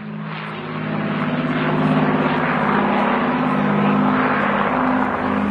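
Avro Lancaster bomber's four Rolls-Royce Merlin V12 piston engines running as it flies past overhead. The low engine hum pulses slowly and grows louder over the first two seconds, then holds steady.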